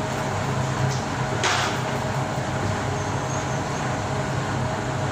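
Steady hum and fan rush of a gas water heater's power burner running, with a thin steady whine above the low hum. A short burst of noise comes about a second and a half in.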